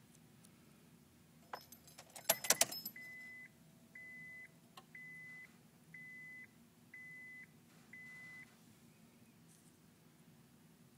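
Car keys jangling and clicking into the ignition of a 2002 Honda Accord, then the car's warning chime beeps six times, about once a second, with no cranking or engine sound.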